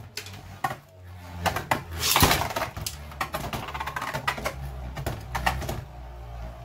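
Beyblade Burst spinning tops whirring in a plastic stadium, with a steady low hum and irregular clicks as they scrape and knock against the stadium floor, walls and each other. A louder, longer stretch of scraping comes about two seconds in.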